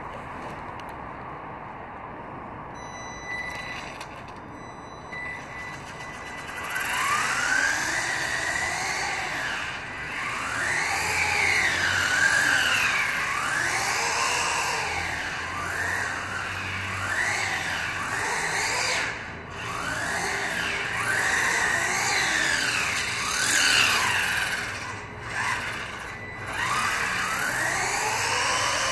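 Electric motor and gear train of a 1:18-scale A979 RC buggy whining. The pitch rises and falls over and over as the throttle is worked, growing loud about six seconds in after a quieter start.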